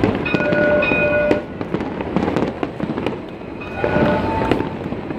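Fireworks going off in a fast run of bangs and crackles. Twice, about a second each, a held high tone sounds over them, once near the start and once about four seconds in.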